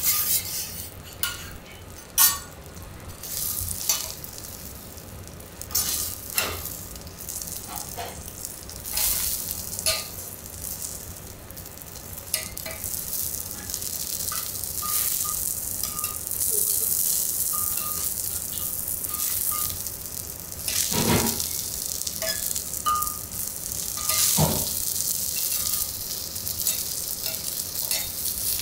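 Chateaubriand of Sendai-beef wagyu sizzling on a teppanyaki iron griddle, the hiss growing louder about halfway through. Sharp metal clicks and taps of the chef's utensils on the griddle come several times in the first half, with two heavier knocks near the end.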